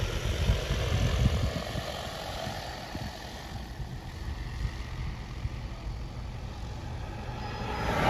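Agricultural spray drone's rotors humming steadily, growing fainter after the first couple of seconds as it flies away.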